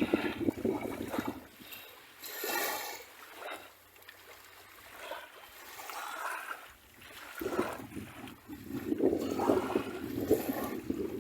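Sea waves washing onto a beach, rising and falling in surges. A wash fades over the first couple of seconds, a quieter lull follows, then a fresh wave rushes in about two-thirds of the way through and is loudest near the end.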